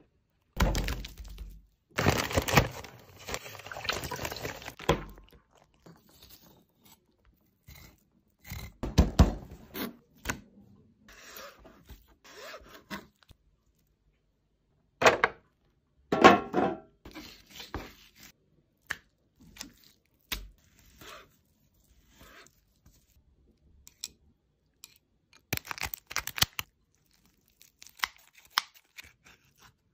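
Food-preparation sounds from a knife working fish on a cutting board: bursts of scraping and cutting with scattered thunks on the board, separated by silent gaps.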